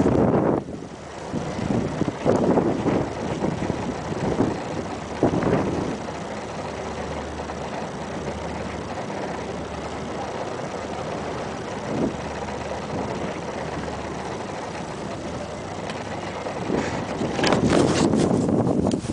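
Sandstorm wind rushing over the microphone, gusting hard in the first few seconds and again near the end, steadier in between with a low steady hum underneath.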